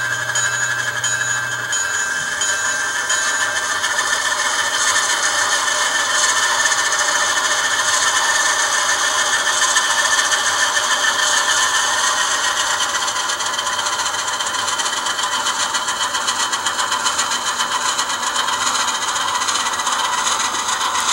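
ESU LokSound sound decoder in an N-scale Alco DL-109 model locomotive, playing a diesel engine sound through its small speaker. The engine note rises in pitch and gets a little louder over the first dozen seconds, as when a diesel's throttle is notched up, then runs on steadily.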